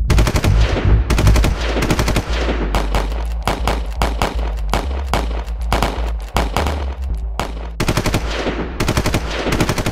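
Light machine-gun fire in repeated bursts, each a string of rapid shots a second or two long, with short breaks between and a brief lull about three-quarters of the way through.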